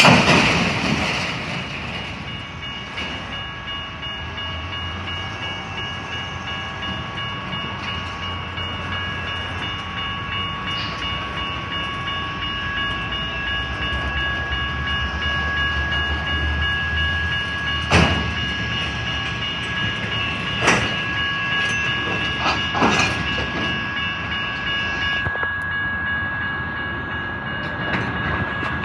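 Union Pacific diesel locomotive and its train moving slowly, with a low rumble and a steady high whine throughout. A loud rush of noise comes at the very start, and a few sharp clanks follow in the second half.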